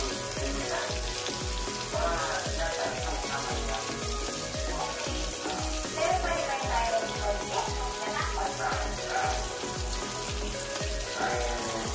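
Pork belly sizzling on the griddle plate of an electric BBQ and hot-pot cooker, a steady frying hiss. Background music with a steady beat plays underneath.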